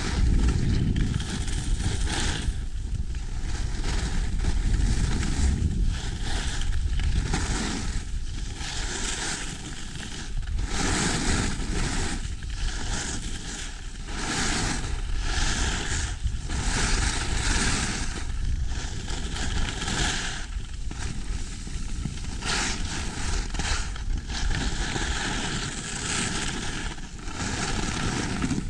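Skis scraping and hissing over packed snow, swelling and fading every second or two as the skier carves turns. Under it, wind rumbles steadily on the microphone.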